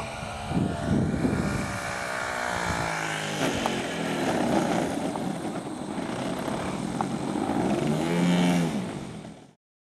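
OS 160 two-stroke engine of a radio-control aerobatic model plane, throttled back as it lands and rolls out on grass, its note falling in pitch early on. Near the end there is a brief rise and fall in pitch, and then the sound cuts off abruptly.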